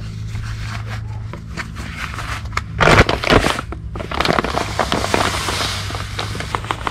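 Plastic fertilizer bag crinkling as it is handled and tipped, loudest about three seconds in, then Scotts Turf Builder Weed & Feed granules pouring into a plastic hand-held spreader's hopper as a dense run of small ticks.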